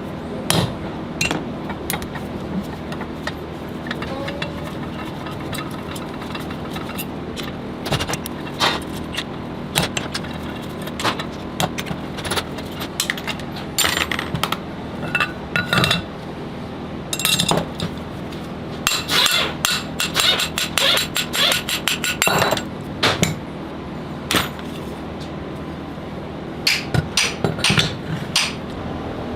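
A hammer and metal tools tapping and clinking on an alternator's metal parts while it is taken apart. The knocks are sharp and irregular, with quick runs of taps about two-thirds of the way through and again near the end.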